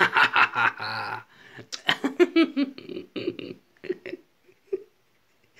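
A man laughing heartily in loud bursts, tailing off into a few short chuckles toward the end.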